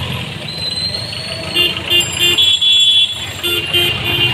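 Street traffic running steadily, with a vehicle horn sounding several short toots and one longer honk from about a second and a half in.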